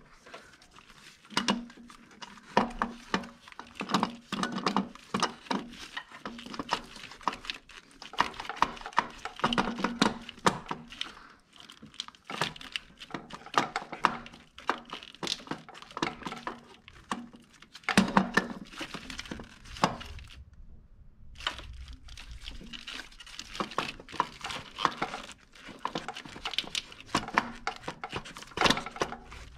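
Gloved hands working in a car's engine bay, moving rubber hoses, the wiring harness and plastic connectors: irregular small clicks, knocks and rustling with no steady rhythm.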